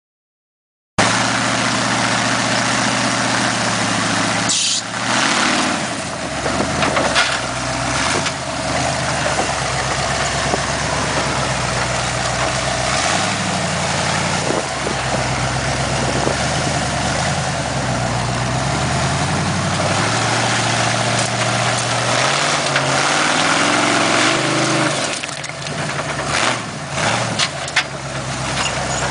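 Rock-crawling buggy's engine running under load, its speed rising and falling as the throttle is worked while it climbs a rock ledge, with a few sharp knocks from the buggy on the rock.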